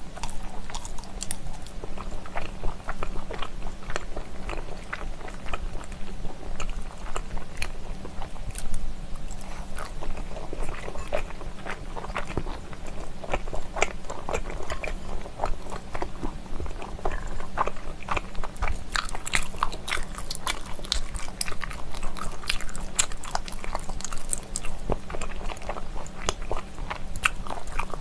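Close-miked chewing of stir-fried pork skin in spicy sauce: a steady run of short mouth clicks and smacks as the chewy skin is bitten and chewed.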